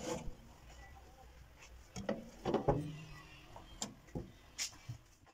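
Scattered clicks and knocks of a glass baking dish being slid onto the wire rack of a countertop toaster oven and the oven's glass door being shut, with the loudest knocks about two seconds in.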